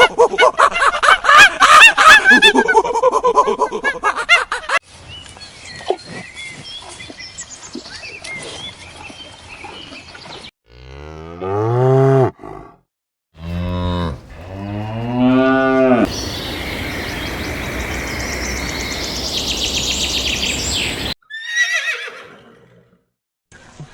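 A string of short animal sound clips. The loudest are wavering calls over the first few seconds, and about halfway through a cow moos twice, two long, low calls that fall in pitch, followed by a steady noisy stretch and one short call near the end.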